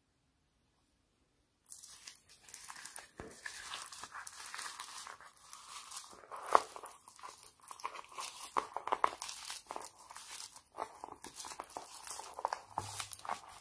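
Foam-bead slime crackling and popping as fingers press and squeeze a heap of foam beads. It starts suddenly about two seconds in as dense, irregular crackles, with one sharper snap about six and a half seconds in.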